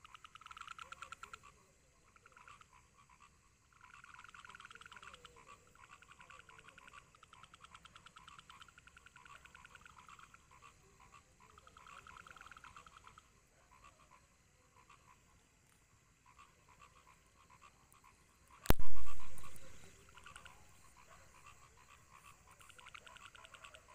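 Frogs calling in repeated bursts of rapid croaks, each burst lasting about a second. Late on, one sudden loud thump with a short low rumble after it.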